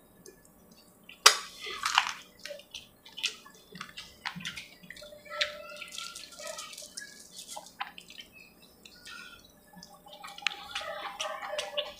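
Close-up eating sounds: a man chewing chicken curry and puri, with wet smacks and clicks of mouth and fingers at an uneven pace. The sharpest smack comes about a second in.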